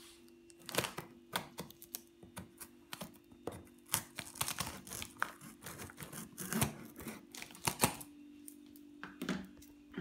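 Kitchen knife slicing through packing tape and cardboard on a parcel: an irregular run of scratchy cuts, scrapes and taps that pauses briefly near the end, over a faint steady hum.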